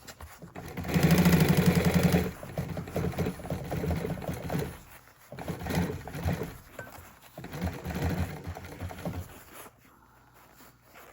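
Sewing machine stitching a seam in an upholstery armrest cover, running in several bursts: a loud run about a second in, then three shorter runs with brief stops between them, ending a little before the end.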